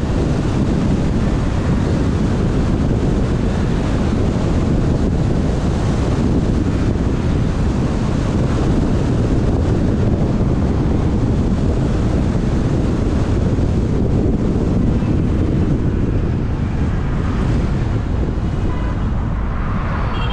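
Steady, heavy wind rumble on the microphone of a moving car, with road noise underneath.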